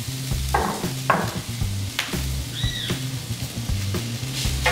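Shredded beef sizzling on a hot flat griddle, with a few scrapes and knocks from the utensil as the meat is spread out. Background music plays underneath.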